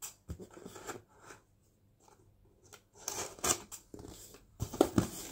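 Cardboard box being cut and opened by hand: short scratchy bursts of a knife on packing tape and hands scraping the cardboard, with a quiet pause in the middle and a few sharp clicks near the end.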